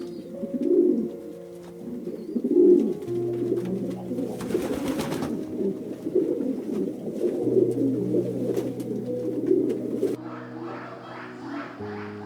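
Pigeons cooing: a couple of low coos, then a dense run of overlapping coos that stops abruptly about ten seconds in, over background music of sustained tones.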